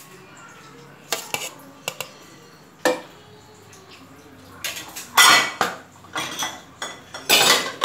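A metal spoon knocking and scraping against cookware: a few light clicks and a ringing tap in the first three seconds, then louder scraping strokes in the second half.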